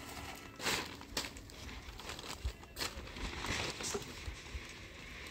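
Black plastic sheeting rustling and crinkling in repeated short bursts as it is pulled and spread by hand.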